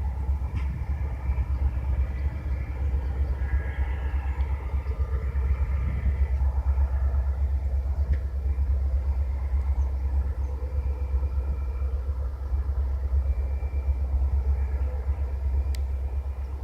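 Pan Am Railways diesel freight locomotives running with a steady low rumble and a set of steady engine tones above it.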